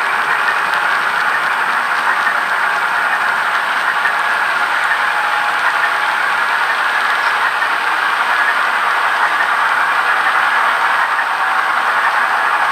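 Empty model-railroad coal hopper cars rolling past on the track: a steady rolling noise of small metal wheels running over the rails.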